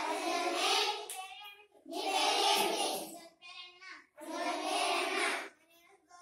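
A group of schoolchildren singing together in unison, in short phrases of about a second and a half with brief pauses between them.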